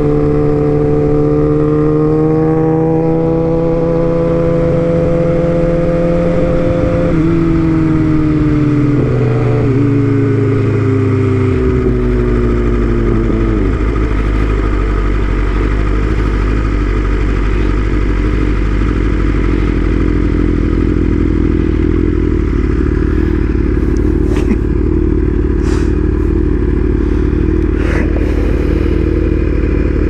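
BMW S1000RR's inline-four engine pulling with a slowly rising pitch for several seconds, then falling away as the bike slows. After that a steady rush of wind and engine noise takes over, with a few light taps near the end.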